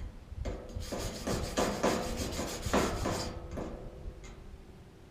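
Wire brush scrubbing back and forth over fresh welds, cleaning them up, in quick scratchy strokes about three a second that ease off a little after three seconds in.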